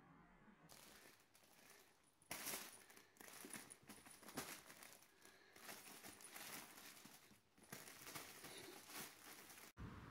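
Kittens scuffling around a fabric play tunnel: faint, irregular rustling and crinkling with small scrabbling clicks, starting about two seconds in.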